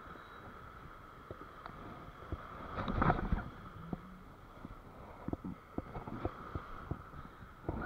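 Shallow surf washing in over sand, with a louder rush of water about three seconds in. Near the end come scattered small clicks and knocks as the spinning reel and rod are handled.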